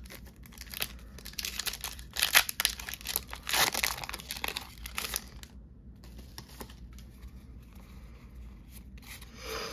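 Foil wrapper of a Pokémon card booster pack being torn open and crinkled by hand: busy tearing and crackling for about the first five seconds, then quieter crinkling as the wrapper is handled.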